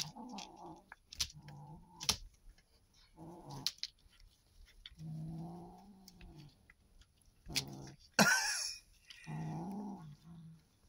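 Nine-week-old kitten growling over a mouse held in its mouth: about six low, drawn-out growls with short gaps between, a louder, harsher outburst about eight seconds in, and a few sharp clicks in between.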